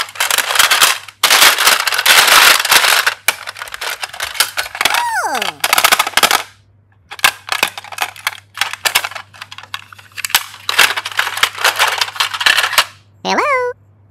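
Small clear plastic cases clattering and rattling against one another as a hand digs through a basket full of them, in long runs of rapid clicks. A falling tone sounds about five seconds in, and a short rising tone near the end.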